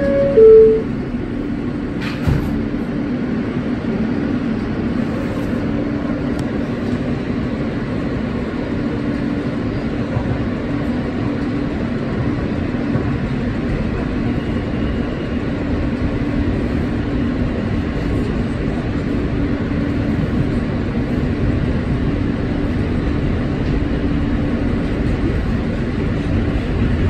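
R160 subway car's two-note descending door chime, followed about two seconds in by a knock as the doors shut. Then the car runs steadily, a continuous rumble with a constant hum.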